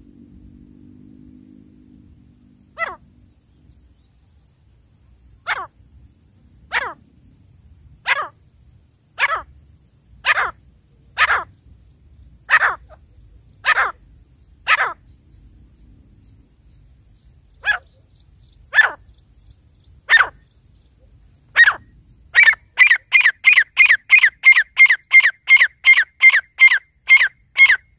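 Grey francolin (teetar) calling with loud, sharp notes that fall in pitch. The first notes come singly, about one a second. Near the end they speed up into a fast run of about three notes a second.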